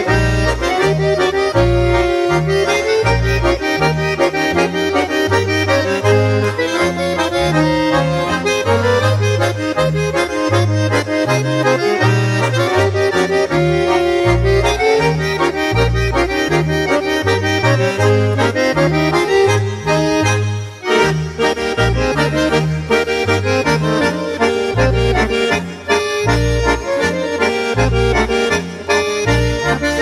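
Accordion-led Swiss Ländler music with a steady, bouncing bass line.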